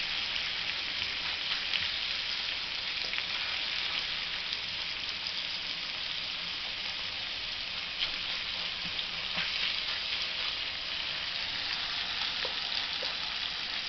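Small pieces of beef steak sizzling steadily in a nonstick frying pan, stirred with a silicone spatula, with a few faint ticks through the sizzle.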